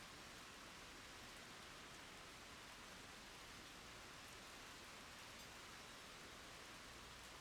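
Rain falling on ground and puddles: a faint, steady hiss with an occasional faint drop tick.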